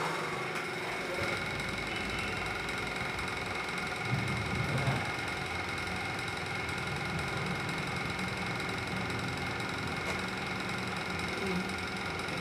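Electric table fan's motor running with a steady hum, with a brief low bump about four seconds in.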